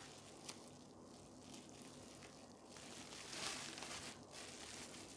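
Plastic bubble wrap crinkling and rustling in the hands as it is handled and worked loose from the packed item, with a few small crackles; it grows louder about three seconds in.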